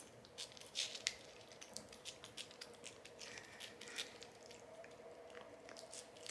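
A cat licking a squeezable Churu paste treat from its tube: an irregular run of quick, wet licks and tongue smacks, several a second.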